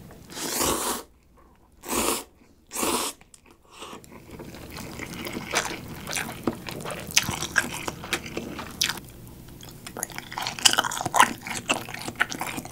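Three loud slurps of instant cup ramen noodles in the first three seconds, then close-up chewing with many small wet clicks and lip smacks.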